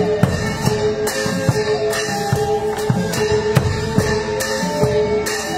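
Thai traditional percussion ensemble playing: a large barrel drum is struck and hand cymbals crash in a steady beat of about two strokes a second. A line of held notes that moves between a few pitches runs above the beat.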